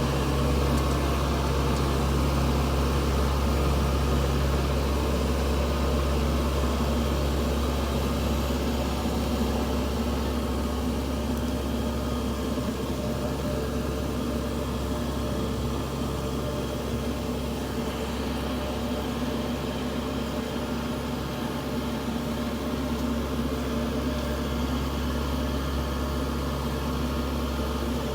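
Combine harvester's engine running steadily at a constant speed, a low, even drone.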